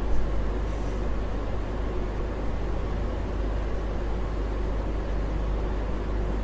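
Steady low hum with an even background hiss and no distinct events.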